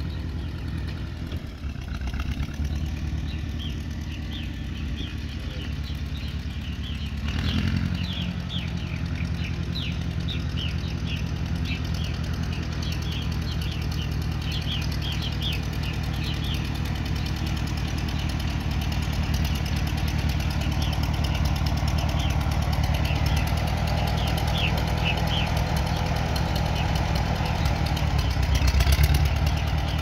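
1957 Case 300 tractor engine running smoothly and steadily under way, growing louder about seven seconds in and again near the end as it comes close. Purple martins chirp over it through the middle of the stretch.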